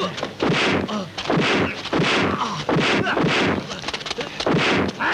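Dubbed fight sound effects: a rapid run of punch and kick impacts, about two a second, mixed with the fighters' short shouts and grunts.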